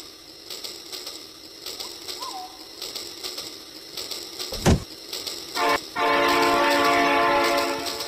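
Toy train set's electronic horn sounding: a short toot about five and a half seconds in, then a long steady toot held for nearly two seconds. A single sharp thump comes just before the horn.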